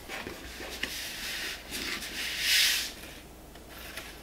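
Blue painter's tape being pulled off its roll and pressed onto a cardboard template on a wall: scattered rubbing and small taps, with one louder ripping hiss of tape peeling off the roll a little over two seconds in.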